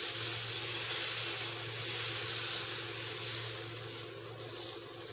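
Dosa batter sizzling with a steady hiss as it is poured onto a hot iron tawa and spread in circles with a ladle; the hiss eases off over the last second or so. A low steady hum runs underneath.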